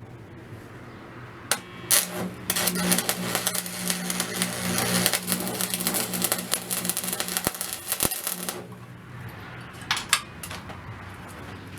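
Small metal parts clinking, rattling and scraping in dense clusters for several seconds, over a steady low hum, then a few more clicks near the end.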